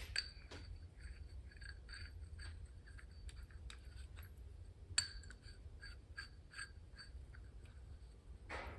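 Light metallic clinks of small steel hardware being worked by hand, roughly two a second and irregular, each with a faint ring. One sharper click comes about five seconds in.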